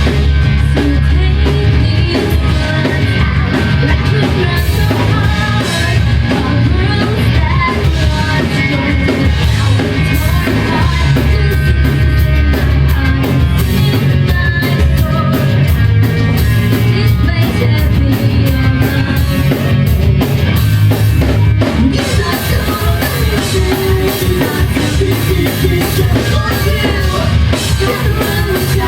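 Live rock band playing loudly, with a drum kit driving the beat under bass and guitar.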